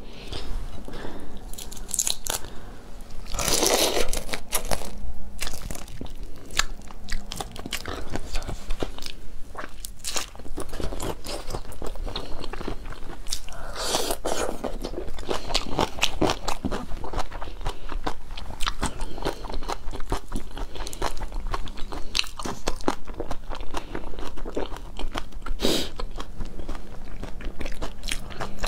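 Close-miked eating of raw marinated shrimp: biting, sucking and chewing, a dense run of small wet clicks and soft shell crunches. Two longer, louder wet bouts come about four seconds in and about halfway through.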